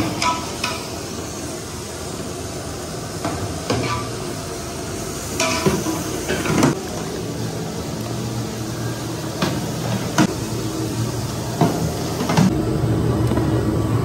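Stainless-steel idli plates and a ladle clanking now and then against a batter pot and a steamer cabinet, over a steady low hum that grows louder near the end.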